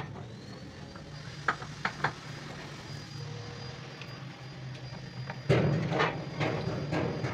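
A machine running with a steady low hum and a few sharp metallic clicks. About five and a half seconds in, a louder, rougher noise sets in.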